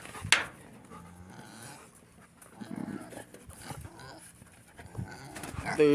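A dog panting, with a single sharp click about a third of a second in.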